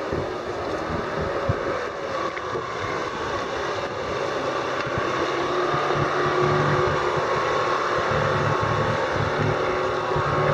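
Motorboat engine running steadily, a continuous drone that holds its pitch.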